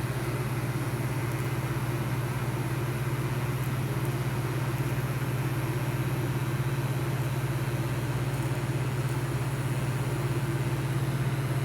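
A steady, unchanging low machine hum with a constant hiss over it.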